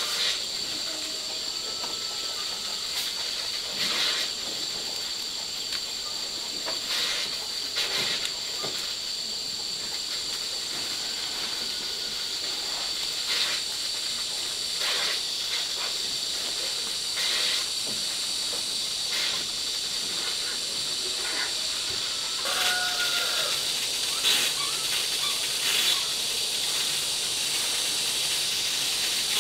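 Leaves being stripped by hand from harvested plants: irregular snaps and rustles every second or few, over a steady high-pitched hiss.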